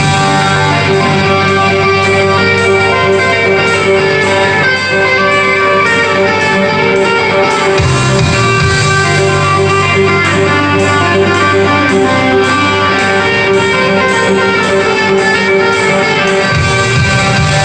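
Live electric guitar music from a Les Paul-style electric guitar: a loud, continuous melodic line of held and changing notes over sustained low notes, with the low notes shifting about eight seconds in and again near the end.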